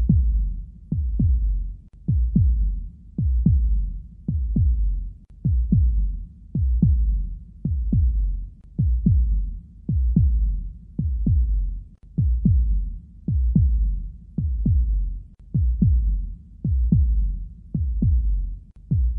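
Heartbeat sound effect: a slow, steady lub-dub, paired low thumps repeating a little faster than once a second.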